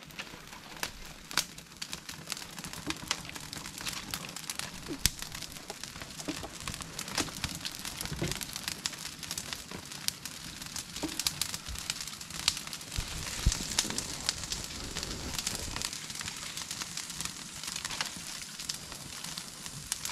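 Open fire of dry palm fronds crackling, with many irregular sharp snaps and pops.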